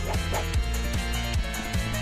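Music with a steady bass-drum beat, about two beats a second.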